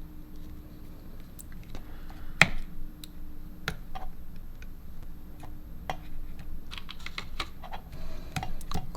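A run of irregular light clicks and taps, with one sharp louder click about two and a half seconds in and quicker clicks near the end.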